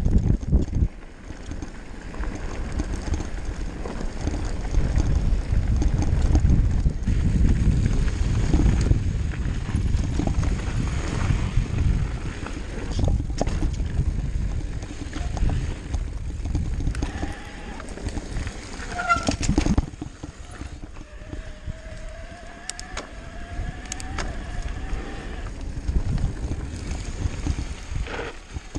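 Mountain bike riding fast down a dirt trail, heard from a camera on the rider's chest: a low rumble of wind on the microphone and tyres on dirt, with frequent knocks and rattles of the bike over bumps. A faint drawn-out tone rises slowly for a few seconds after the middle.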